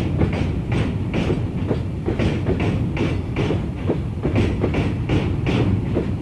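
Indian Railways freight wagons rolling past, their wheels clacking over rail joints in a steady rhythm of about two to three clacks a second over a continuous low rumble.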